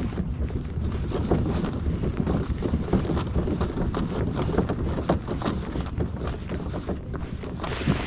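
A loaded fishing kayak's hull scraping and grating over a grooved concrete boat ramp as it is pushed toward the water, with a steady rough rumble full of small irregular clatters. There is some wind noise on the microphone.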